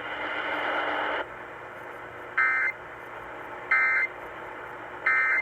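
About a second of radio hiss, then three short, loud buzzing bursts of Emergency Alert System SAME data tones about 1.3 s apart. These are the end-of-message signal that closes a weather radio flash flood warning.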